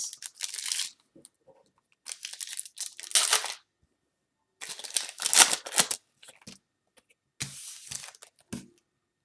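A trading-card pack wrapper being torn open and crinkled by hand, in four short bursts of rustling, the loudest about halfway through.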